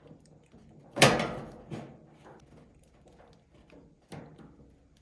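Flathead screwdriver prying a stubborn plastic Molex connector off a dryer's door switch. There is a sharp clack about a second in as it gives, followed by small clicks and rattles of plastic and metal.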